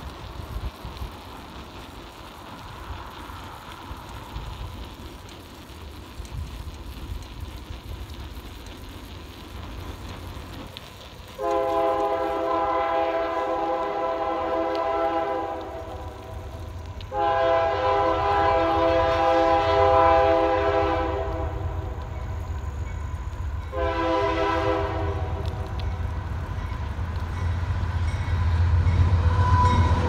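Air horn of a Union Pacific GE diesel locomotive sounding two long blasts and a short one, the grade-crossing signal, starting about a third of the way in. Under the horn the low rumble of the approaching train's diesel engines grows steadily louder.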